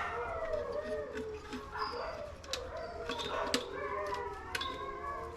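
A pack of dogs howling together, several wavering voices rising and falling over one another, with scattered sharp clicks over them.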